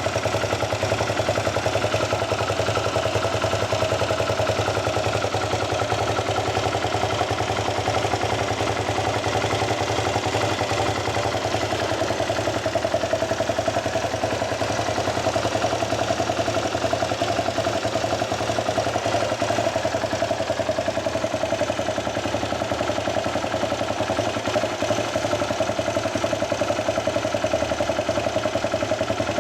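Yamaha WR250X's single-cylinder engine idling steadily through an aftermarket Delta Barrel 4 silencer with a Powerbox pipe.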